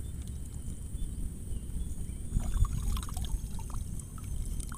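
Lake water sloshing and trickling around a person standing in it, with a few small splashes a couple of seconds in, over a steady high-pitched hum.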